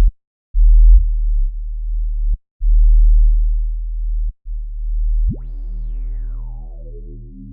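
Deep sub-bass synthesizer notes from a Native Instruments Massive patch, played as three separate held notes with a short click as each one cuts off. About five seconds in, a brighter synth note with a stack of overtones sweeps sharply up and then slides back down over the bass.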